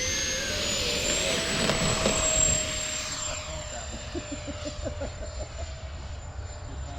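Radio-controlled model airplane's motor whining in flight: a high tone climbing over the first second and a half, then holding steady, with the rush loudest in the first two and a half seconds before it fades as the plane moves off.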